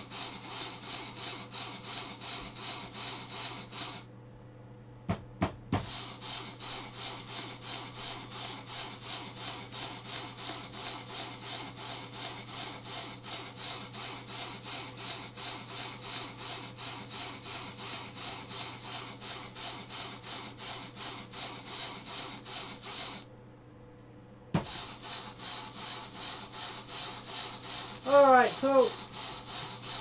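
Homemade motor-driven rotary switch running, its brass brushes rasping on the spinning toothed wheel as they make and break a 12-volt battery circuit to two microwave oven transformers, pulsing about three times a second. It stops twice, for about two seconds a few seconds in and for about a second late on, with a few clicks and a thump around the stops.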